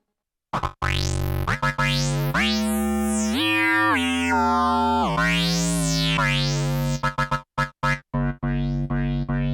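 Modal Electronics Argon8M digital synthesizer playing sustained chords whose brightness sweeps up and down. The chord steps up in pitch about halfway and back down, then breaks into short choppy stabs near the end.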